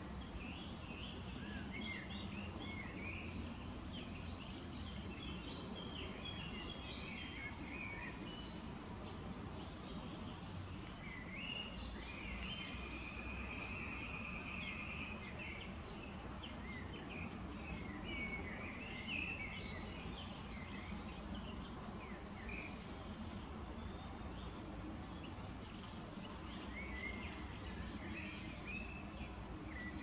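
Common nightingales and other birds singing at dusk: a steady mix of varied chirps and whistles, with four loud, sharp high calls in the first dozen seconds and a held whistle near the middle.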